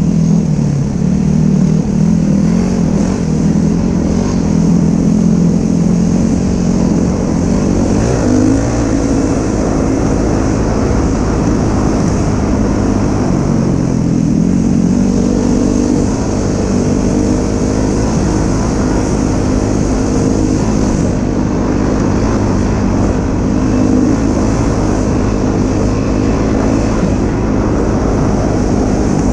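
Dirt bike engine running while riding along a sandy trail, heard from the rider's helmet. Its pitch steps up and down a few times with throttle and gear changes.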